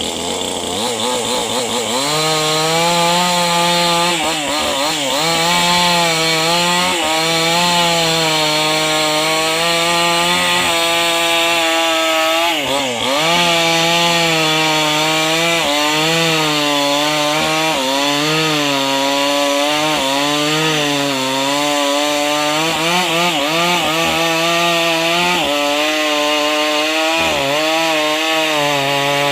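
Two-stroke chainsaw running at high revs while cutting into the tree's wood, its engine pitch sagging and recovering again and again as the chain bites and clears.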